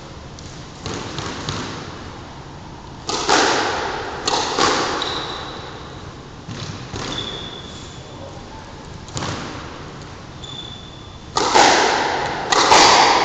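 Squash rally: the ball smacking off rackets and the court walls, sharp hits a second or more apart, each ringing out in the enclosed court, the loudest pair near the end. A few brief high squeaks come between the hits, likely from sneakers on the wooden floor.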